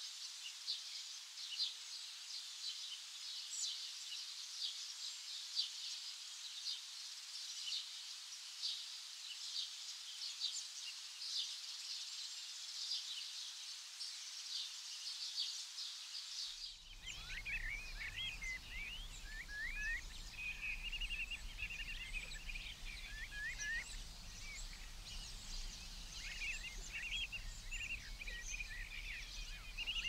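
Forest ambience: a steady high hiss with many quick, high bird chirps. About halfway through it changes to birds singing rising and falling whistled phrases over the low, steady sound of a flowing stream.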